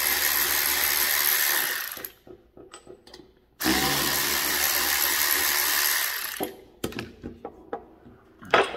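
Cordless ratchet running in two bursts of about two and three seconds, spinning out the bolts that hold a rocker cover to a cylinder head. After the second burst come a few light clicks and knocks, and then a sharp metallic clack near the end as the cover comes off.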